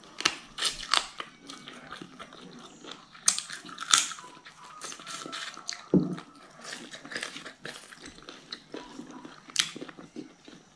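Close-miked eating sounds: wet chewing with sharp mouth clicks, smacks and crunchy bites. A dull thump comes about six seconds in.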